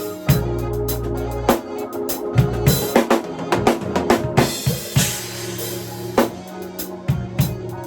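Drum kit played over a backing track: busy kick, snare and tom strikes, with a cymbal crash ringing out about five seconds in.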